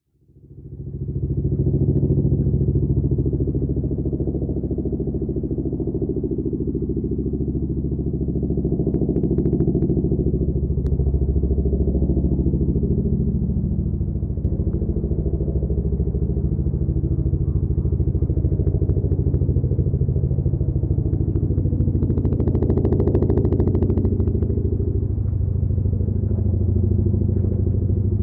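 Boeing CH-47 Chinook tandem-rotor helicopter running, a deep, steady rapid beat from its two rotors mixed with engine noise. It fades in over the first second or two, with a brief rise of higher, hissing noise about 22 seconds in.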